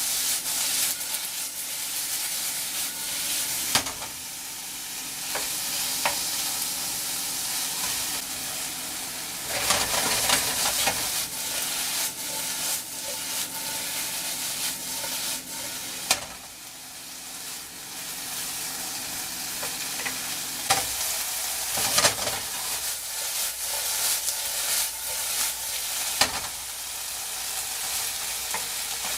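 Sliced chicken breast sizzling in hot oil in a sauté pan over medium-high heat, a steady hiss, with a utensil clicking and scraping against the pan every few seconds as the pieces are turned over.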